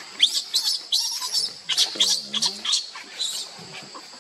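Baby macaque crying: a rapid run of short, shrill squeals, some rising in pitch, that stops about three and a half seconds in, over a steady high-pitched hum.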